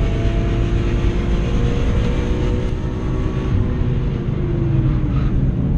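BMW E46 M3's S54 straight-six engine running hard at high revs, heard from inside the cabin. Near the end the revs fall away slowly.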